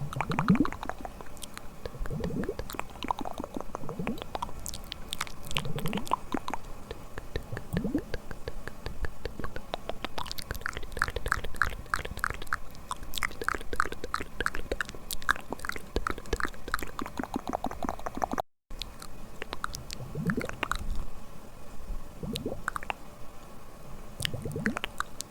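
Close-miked ASMR mouth sounds: wet lip and tongue smacks and clicks, with a quick, even run of clicks in the middle.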